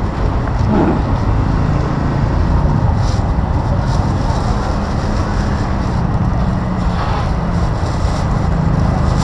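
Steady outdoor street noise: a continuous low rumble of passing traffic with wind buffeting the microphone.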